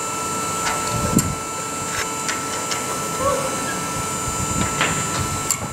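Steady background hiss and hum with a constant high tone, faint distant voices and a few light clicks.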